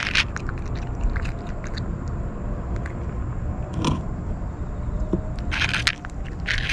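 Kitten crunching dry kibble from a paper bowl right at the microphone: clusters of crisp crunches at the start and near the end, with a sparser stretch in between, over a steady low rumble.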